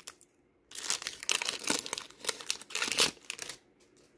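Foil wrapper of a Pokémon trading card booster pack crinkling as it is torn open and the cards are pulled out, in several rustling bursts that stop a little before the end.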